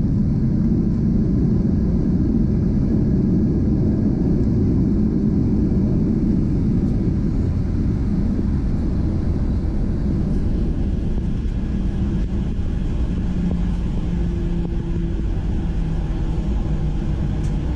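Boeing 737 airliner landing: a steady low rumble that eases slightly about ten seconds in, with faint steady hums coming in near the end.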